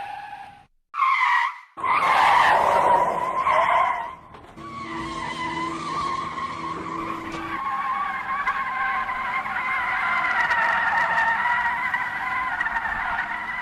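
Car tyres skidding and squealing on pavement: a few short screeches broken by brief gaps in the first four seconds, then one long, wavering squeal from about four and a half seconds on.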